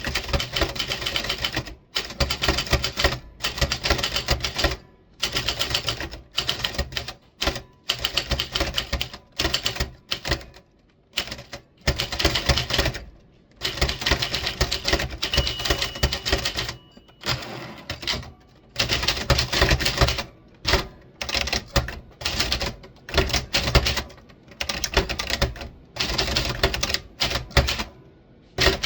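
Typewriter keys struck in quick runs of rapid clacking, each run a second or two long, broken by short pauses.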